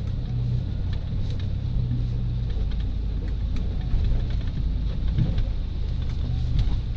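Bale-bed pickup truck's engine running as the truck creeps along, heard from inside the cab as a steady low drone with a few faint clicks.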